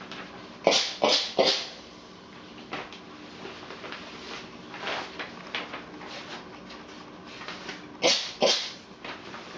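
Steam iron blasting short shots of steam, three quick hisses in a row about a second in and two more near the end, with softer puffs between. The steam is used with the iron hovering above old paper to relax it for flattening.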